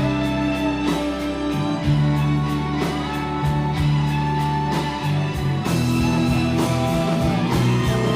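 Live rock band playing an instrumental passage: a guitar carries held and bent notes over bass and steady drums.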